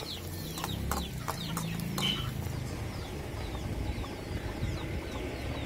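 Chickens clucking and peeping, short high calls repeated throughout. A few clicks of a metal spatula against the aluminium pan come in the first second or so.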